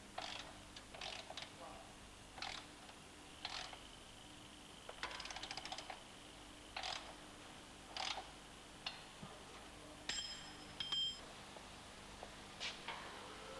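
Faint metal clinks and clicks of tools and sill clamps being fitted and tightened on a car-body straightening bench. There is a quick run of ratchet-like clicks about five seconds in, and a short ringing metallic clink near the eleven-second mark.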